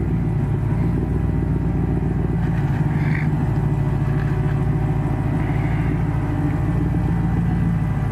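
Rock-crawling buggy engine running steadily, without big revs.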